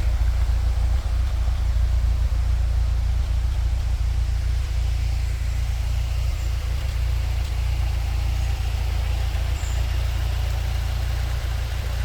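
Waterfall: a steady rush of falling water with a deep, continuous low rumble.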